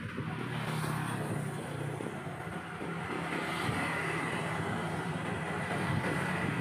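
Motorcycle traffic passing close by on the road, engines running steadily over road noise.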